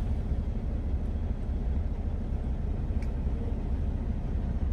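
Steady low rumble of a parked semi truck's engine idling, heard from inside the cab, with a faint click about three seconds in.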